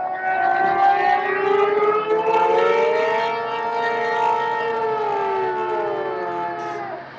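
Brass ensemble, trombones among them, playing several long overlapping held notes, some sliding slowly up and back down in pitch. The chord sets in at the start and cuts off shortly before the end.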